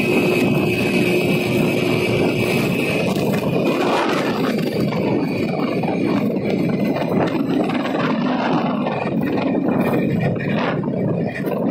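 Wind rushing over the microphone with a two-wheeler's engine running underneath, riding along the road at a steady speed. A faint steady whine fades out about three seconds in.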